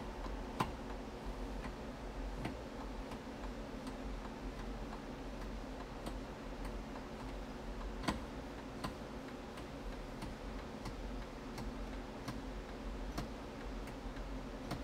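Steady, even ticking, about three ticks every two seconds, over a low hum.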